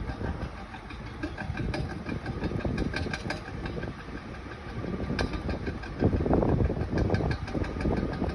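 Car with a bad CV axle running, with a fast, evenly repeating clicking over the engine and road noise: the click of a worn CV joint. The noise grows louder and rougher about six seconds in.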